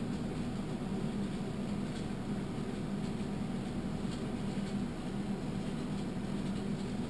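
Steady low hum of room and computer noise, with faint clicks of a computer mouse scrolling a page, about two and four seconds in.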